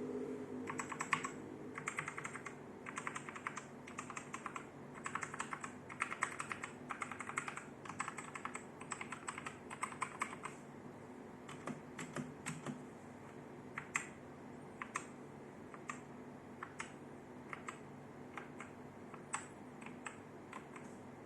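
Daxa M71 Classic mechanical keyboard with Outemu Red linear switches being typed on: quick bursts of keystrokes for about the first ten seconds, then slower single key presses spaced apart.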